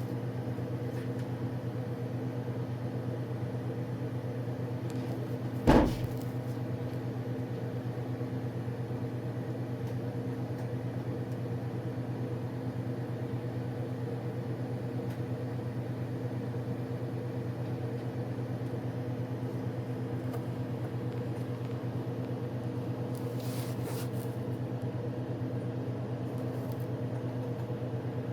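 Steady low mechanical hum, like a motor or engine idling, with one sharp loud knock about six seconds in.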